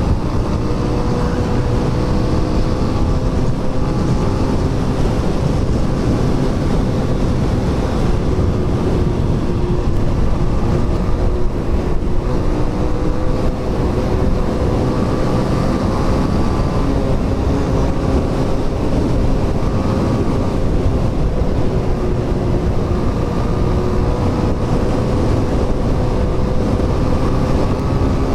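Motorcycle engine running steadily at cruising speed, with wind noise rushing over the microphone.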